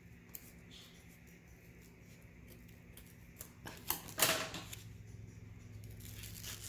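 Scissors snipping through the plastic wrapping of a rolled diamond-painting canvas tube, a few light clicks, then a louder burst of rustling and clicking about four seconds in as the wrapped tube is handled.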